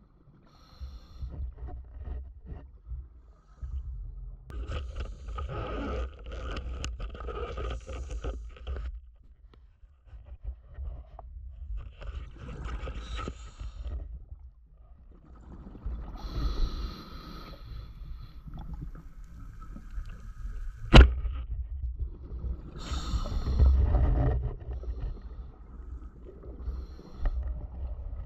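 Underwater bubbling and hissing in bursts every few seconds over a low rumble: a scuba diver's regulator breathing, heard through the underwater camera housing. One sharp snap about two-thirds of the way through is the loudest sound.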